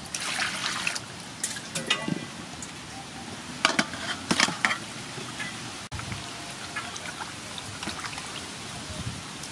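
Water poured into an aluminium basin, then a strainer-load of cuttlefish tipped into the water with a few sharp splashes and clatters about four seconds in. After that, softer splashing as hands rub and swish the cuttlefish in the water to wash them.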